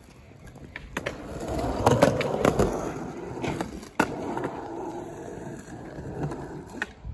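Skateboard wheels rolling on concrete, swelling about a second and a half in and then carrying on more softly. Sharp clacks of the board come through, the sharpest about four seconds in.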